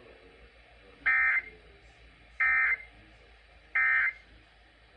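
Three short, identical bursts of Emergency Alert System (SAME) digital data tones from a NOAA Weather Radio broadcast, about a second and a quarter apart: the end-of-message signal that closes the alert.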